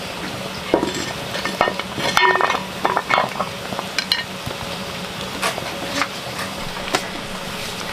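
Metal pot lid lifted off a steaming pot and set down on a stone stove top: a clank about a second in, then a ringing clatter of metal two to three seconds in, followed by a few single knocks and clicks over a steady low hum.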